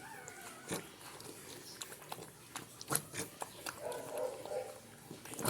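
Dog eating kangkong (water spinach) mixed with dog food: irregular chewing and mouth clicks.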